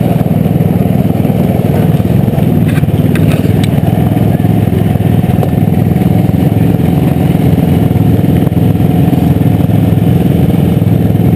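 Youth 120-class snowmobile engines idling steadily at close range, waiting at the start line, with a few light clicks about three seconds in.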